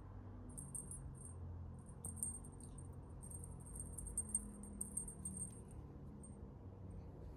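Insects chirping faintly in short, very high-pitched trills that come and go in bursts, over a faint low rumble.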